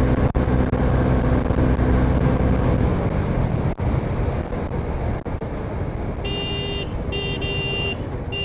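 Bajaj V15's single-cylinder engine running at speed under wind rush on the microphone, its steady tone fading about three seconds in. Near the end a vehicle horn sounds three short blasts.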